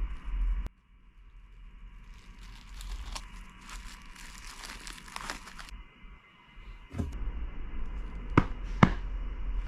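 Goalkeeper-glove packaging being handled during unboxing: a few seconds of crinkling and rustling from about two seconds in, then two sharp clicks about half a second apart near the end.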